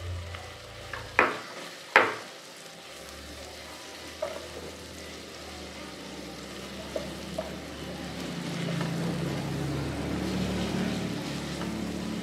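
Sliced sausages frying with onion and garlic in oil in a non-stick pan, stirred with a silicone spatula. The sizzle is steady and grows a little louder in the second half. Two sharp knocks come near the start, about a second apart.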